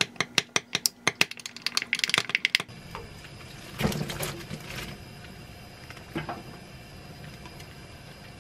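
A metal spoon clinking rapidly against a glass mug while stirring a thick sauce, the clinks coming faster for a moment before stopping. Then sliced cabbage and onion drop into a pan of boiling water about four seconds in, followed by the steady hiss of the water on the gas stove.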